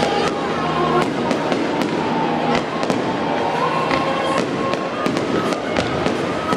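Fireworks display: a string of sharp pops and crackles, several a second at irregular spacing, with music playing underneath.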